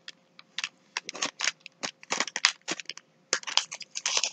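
Parchment paper crinkling and crackling in quick, irregular sharp clicks as a dog's paw is held and pressed down onto salt dough on the paper.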